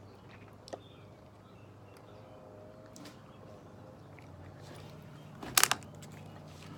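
Quiet background with a few faint small sounds, then a quick clatter of three or four sharp knocks about five and a half seconds in.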